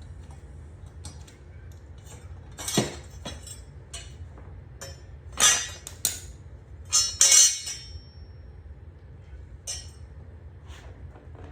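Metal tools and parts clinking and knocking as the mower blade and its bolt are handled: about six sharp clinks spread irregularly, with a cluster in the middle and one leaving a brief high ring.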